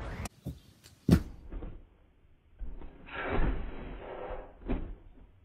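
Several sharp knocks and thumps, the loudest about a second in, with a noisy swell around three seconds in.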